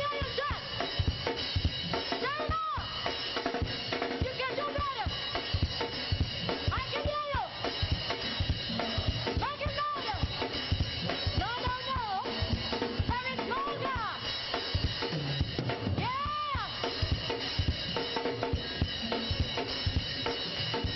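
Live praise-and-worship band music with a drum kit keeping a busy, steady beat. Short melodic lines slide up and down in arcs every couple of seconds.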